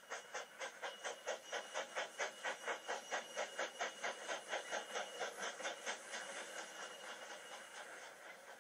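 Steam engine puffing sound effect, an even chuff of about four puffs a second that fades away over the last few seconds. It is heard through a tablet's speaker.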